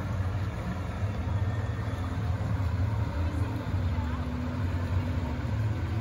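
Outboard motor of a pontoon boat running steadily, a low hum.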